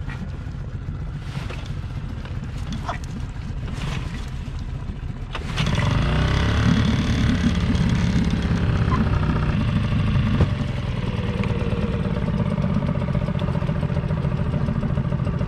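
Small brand-new outboard motor being started cold with the choke out: a few short strokes about a second and a half apart, then it catches about five and a half seconds in, its pitch rises, and it settles into a steady run at low speed.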